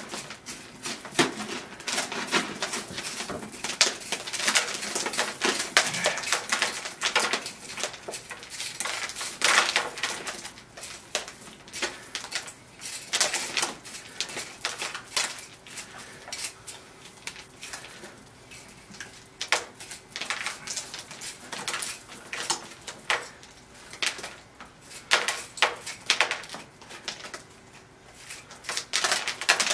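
Irregular scraping, clicking and rustling as old potting soil and substrate are raked and teased out of a bonsai's root ball during repotting.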